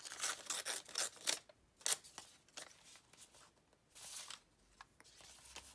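Paper rustling and crinkling as hands handle a scrap of paper and press it onto a journal page. A quick run of sharp rustles comes in the first two seconds, then one longer rustle about four seconds in.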